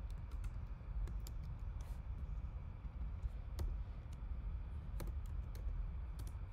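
Computer keyboard keys tapped in short, irregular runs of a few keystrokes, over a steady low background hum.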